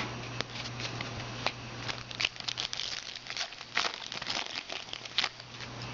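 Foil trading-card pack wrapper crinkling and tearing as a pack of football cards is opened, in irregular crackles.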